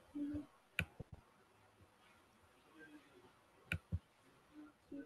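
Sharp clicks from a computer, in two quick pairs about a second and four seconds in, with a brief low hum just before the first pair.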